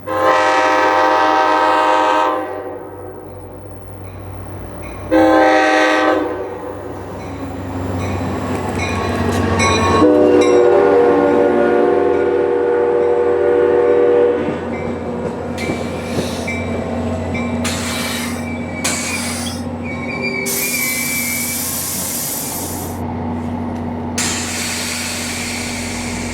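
A GP40-type diesel locomotive sounds its multi-chime horn three times: a long blast, a short one, then a longer one. The train then rolls through with its engine and rail noise running steadily, broken by several bursts of hissing near the end.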